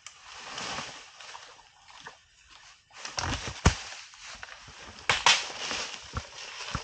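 Asian elephant feeding among forest vegetation: leaves and branches rustling, with sharp cracks and thuds about three and a half seconds in and again about five seconds in.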